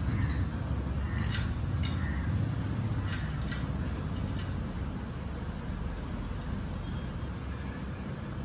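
A cable machine's metal parts clinking sharply several times, about half a dozen light clinks in the first six seconds, as its triceps bar is handled and pulled down from the high pulley. A steady low hum runs underneath.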